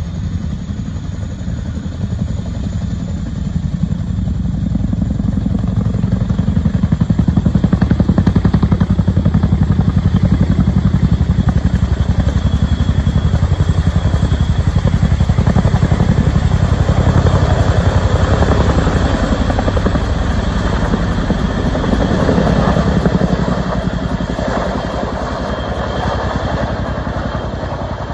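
Boeing CH-47D Chinook tandem-rotor helicopter running at flight power: a fast, even rotor beat over a steady engine noise, with a faint turbine whine. It grows louder about six seconds in, holds, then fades near the end.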